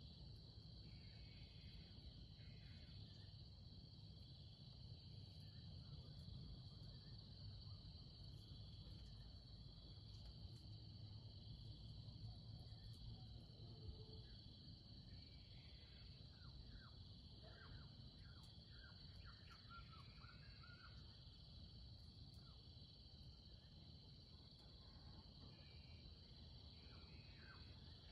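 Faint, steady high chirring of crickets or other insects, with runs of quick, short, falling chirps from small birds in the second half and again near the end.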